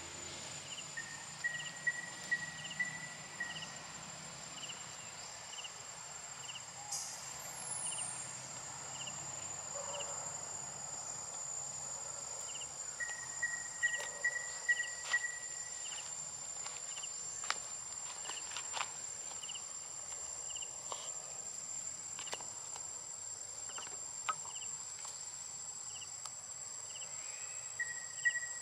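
Insects in a steady, high-pitched chorus with a regular repeating chirp. Short trilling calls come in three times, near the start, around the middle and at the end, with scattered small clicks.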